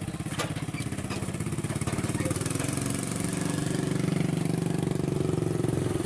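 Vehicle engine running at a steady pulsing beat, growing louder about three seconds in, with one sharp knock near the start.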